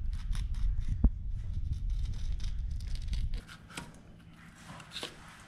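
Knife slicing and scraping along a thazard's backbone while filleting it on a cutting board: a run of short scraping strokes. A low rumble underlies the first three and a half seconds and stops suddenly.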